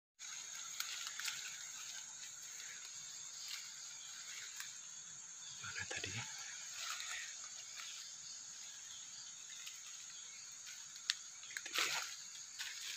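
Steady high-pitched drone of forest insects, with scattered clicks and brief rustles of leaves and undergrowth about six seconds in and near the end.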